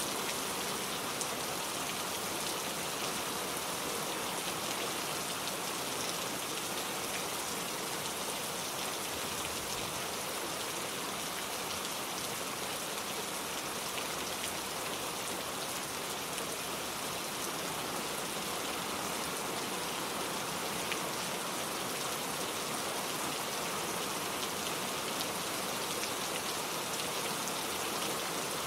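Heavy, steady rain falling, a dense hiss of rain on surfaces with scattered individual drops ticking through it.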